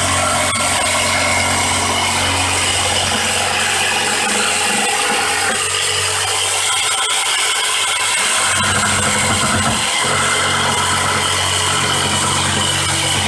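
Corded DeWalt jigsaw running, its blade sawing through a wooden pallet slat. The steady low hum drops away for a few seconds midway, then returns.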